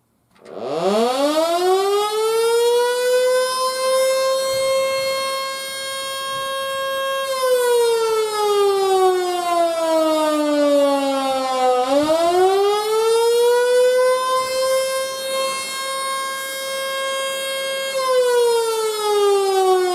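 Antique Model 2 electric outdoor siren, a 220 V unit built around 1911, starting from a standstill and winding up to a steady high wail within about four seconds. It winds partway down, then back up and holds, and begins winding down again near the end. This rising and falling wail is the attack signal.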